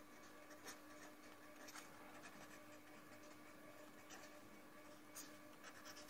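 Faint scratching of a pen tip writing on paper on a clipboard, in a few short, scattered strokes, over a steady faint hum.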